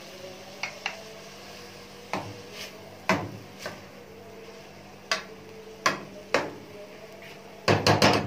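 Metal ladle knocking and scraping against an aluminium cooking pot while stirring minced meat: separate clanks every second or so, with a quick flurry of them near the end, over a low steady hum.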